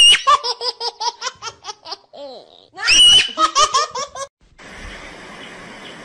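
High-pitched laughter: a squeal that breaks into quick peals of laughter, twice, the second starting about three seconds in. From about four and a half seconds a steady hiss takes over.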